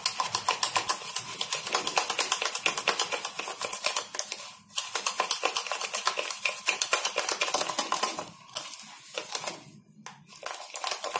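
Metal spoon beating instant coffee, sugar and a little water into a paste in a ceramic mug, clicking rapidly and steadily against the mug. The beating pauses briefly about halfway and again a little before the end.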